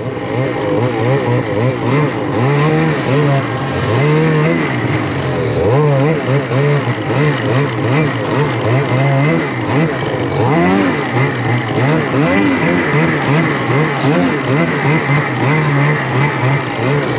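Snowmobile engine under throttle, revving up and down over and over as the sled rides through snow. The throttle opens right at the start.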